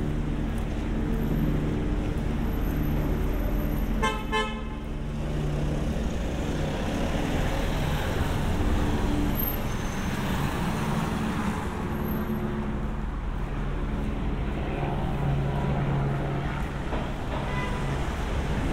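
Street traffic on a rain-wet road: a vehicle engine running with a steady low hum, a short car-horn toot about four seconds in, and a car passing around the middle.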